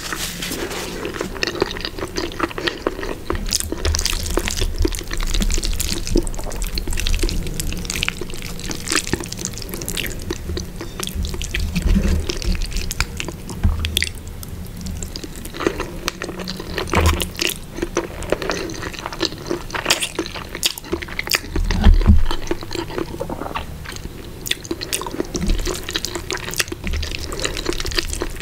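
Close-up wet chewing and mouth sounds from eating creamy spaghetti carbonara: a steady stream of short, sticky, moist clicks and smacks.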